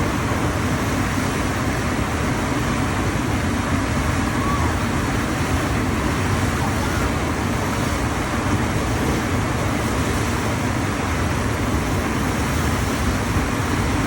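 Steady rushing of water on a FlowRider wave machine, its pumps driving a thin sheet of water up the ride surface.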